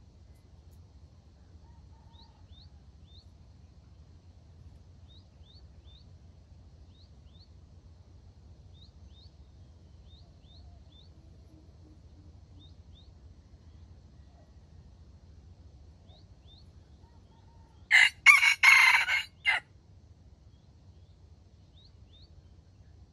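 A junglefowl rooster crows once, a short harsh crow of about a second and a half near the end. Small birds give faint quick chirps in pairs and threes throughout.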